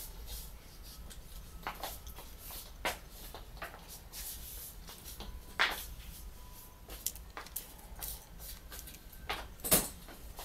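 Scattered small clicks and taps of plastic and metal parts of a Sony DSC-QX10 lens camera being handled and pried apart in the fingers, the sharpest click about halfway and the loudest near the end, over a low steady hum.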